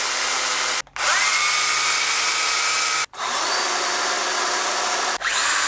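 Small 12-volt cordless pruning chainsaws (Makita DUC101, Milwaukee M12 hatchet, Stihl GTA 26) run one after another on the trigger: a loud, steady motor-and-chain whir in runs of about two seconds. Each run starts with a rising whine as the motor spins up, and there are short breaks between runs.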